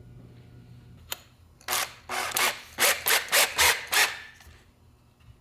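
A hand tool worked back and forth on cedar wood in about eight quick rasping strokes, after a single light tick about a second in, as work begins on a birdhouse entrance hole.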